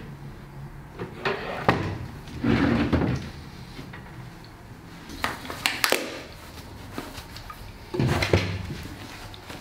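A door being opened and shut, heard as a series of separate knocks and clunks spread over several seconds.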